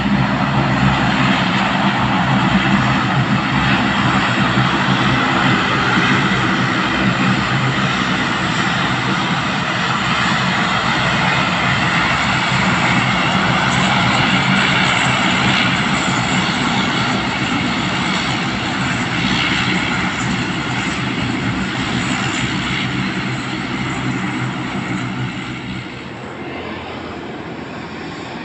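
Twin Pratt & Whitney PW150A turboprops of a Bombardier Dash 8 Q400 airliner running at taxi power as it turns on the runway: a steady propeller drone with a turbine whine. The sound drops in level near the end.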